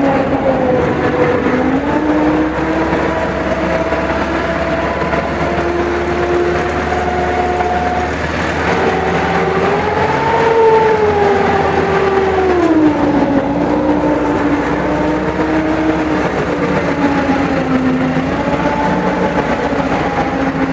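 Vehicle engine running while driving on a rough road, its note rising and falling gently with the revs, with a steady low rumble underneath.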